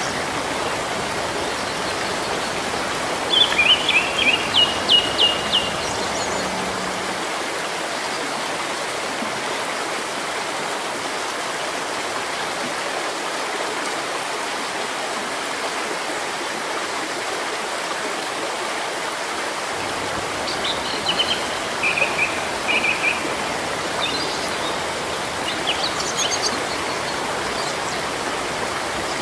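Steady rain falling on leaves, an even hiss throughout. A bird chirps in short quick series over the rain about three seconds in and again from about twenty seconds in.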